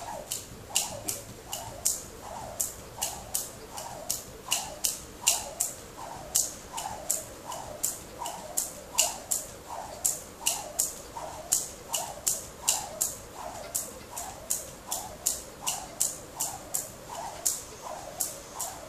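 Jump rope spinning through consecutive double unders, the rope slapping the tile floor in a fast, even run of sharp clicks.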